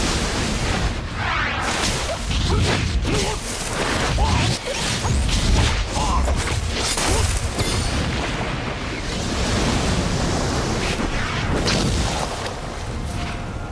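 Martial-arts fight sound effects: a run of whooshes and booms over a steady rush of water.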